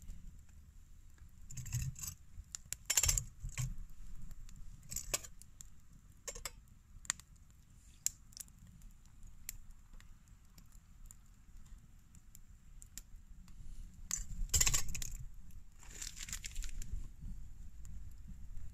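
Scattered sharp metallic clinks and scrapes from a stainless steel camp cup and pot while a hot drink is made in it. The loudest come about three seconds in and again near fifteen seconds.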